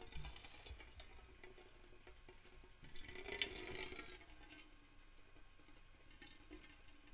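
Faint water running or pouring, strongest for about a second around three seconds in, with a few light clicks.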